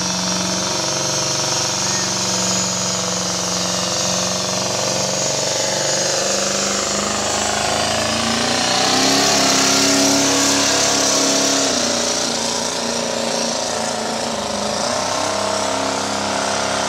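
Pulling truck's engine running hard at high revs under heavy load, a loud, rough, rattling drone whose pitch shifts. It climbs to its highest and loudest about nine to eleven seconds in, then drops back.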